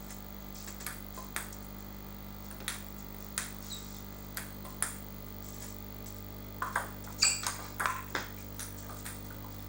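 Table tennis ball clicks: a few single knocks spread through the first five seconds, then a quick rally of bat hits and table bounces about seven seconds in, with short squeaks mixed in.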